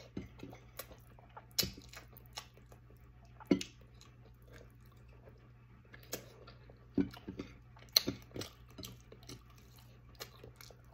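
A person chewing and eating close to the microphone, with irregular mouth smacks and short clicks. A faint low hum runs underneath.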